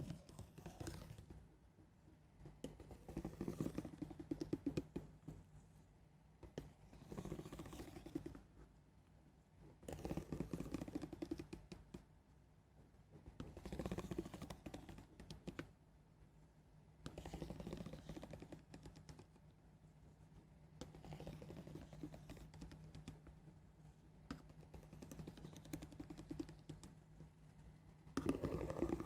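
Soft, slow ASMR scratching: a run of separate grainy strokes, each a second or two long, about one every three seconds.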